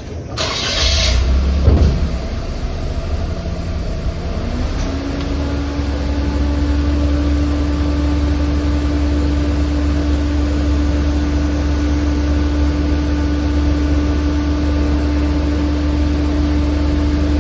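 A nearby engine or motor starts up and runs steadily with a deep hum. A higher tone rises about four seconds in and then holds. There is a short hiss in the first second.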